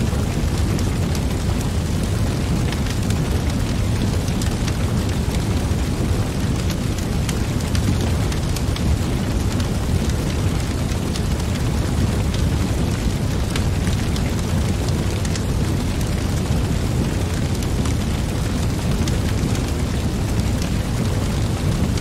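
Wood fire burning in a metal fire pit: a steady low rush of flame with frequent small crackles and pops.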